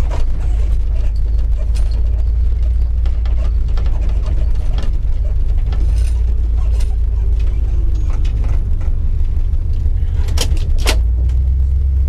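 1964 Dodge Custom 880's V8 running steadily with a deep, even exhaust rumble, over scattered light clicks and knocks, two sharper ones about ten and a half seconds in.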